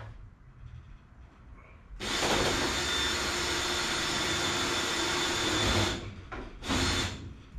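A drill runs steadily for about four seconds, stops suddenly, then gives a short second burst. These are brackets under the instrument panel being match-drilled.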